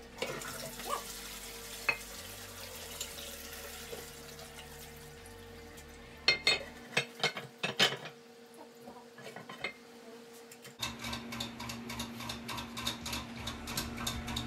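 Water running into a ceramic toilet tank with a steady hiss. Several sharp knocks come about six to eight seconds in, as the porcelain tank lid is handled and set in place.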